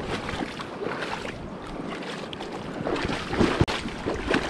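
Shallow river water running and rippling over stones, with a few brief splashes about three and a half seconds in.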